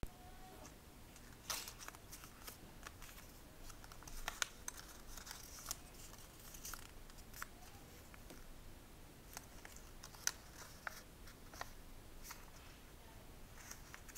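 Faint crinkling of a small square of origami paper being folded and creased by hand, with irregular short crackles and a few sharper snaps of the paper.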